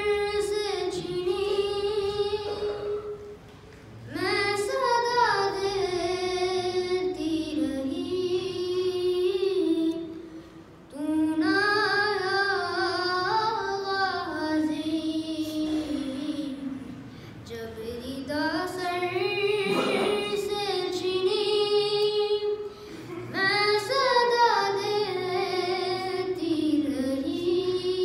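A boy singing solo and unaccompanied into a microphone, in long wavering melodic phrases of several seconds each with short breaths between them.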